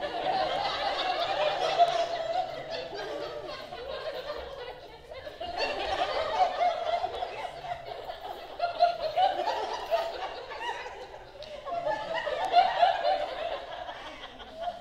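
Small audience laughing, rising and falling in three waves.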